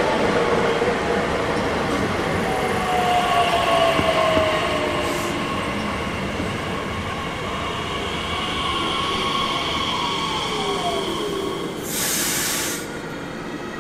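A train running past at the platform, a steady rumble with several high whining tones that slide slowly down in pitch. A short hiss comes near the end.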